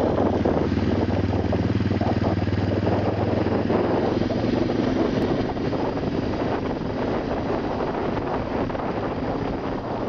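A vehicle driving over a rough gravel road: a steady low engine hum that fades out about halfway through, under continuous road rumble with many small knocks and rattles from the uneven surface.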